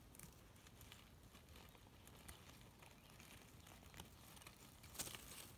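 Near silence with faint, scattered rustles and ticks as a lizard is pinned with a stick and grabbed by hand, with a slightly louder rustle about five seconds in.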